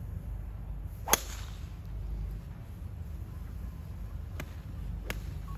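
Golf driver striking a ball: one sharp, loud crack about a second in. Two fainter cracks of other golfers' drives follow near the end.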